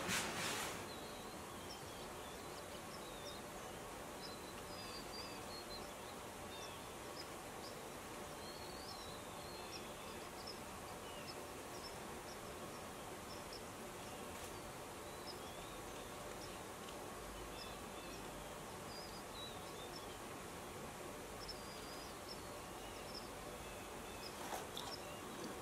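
Quiet steady background hiss with scattered faint, high chirps throughout. A brief rustle right at the start and a few soft clicks near the end.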